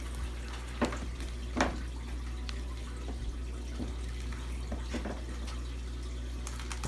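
Water sloshing in clear plastic fish-shipping bags as they are lifted and turned, with two sharp plastic crinkles about one and one and a half seconds in, over a steady low hum.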